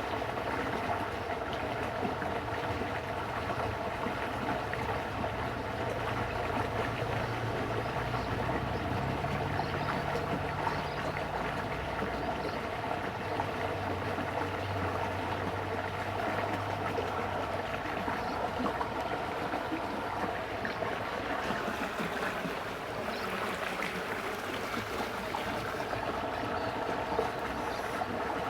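Steady noise of rain falling on and around a ditch, with water running. A faint low hum comes and goes in the middle.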